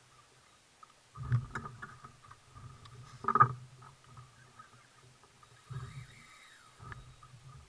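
Dull thumps and knocks on a fishing kayak's hull and fittings as a spinning rod and reel are handled during jigging, a handful of separate bumps with the loudest about three and a half seconds in.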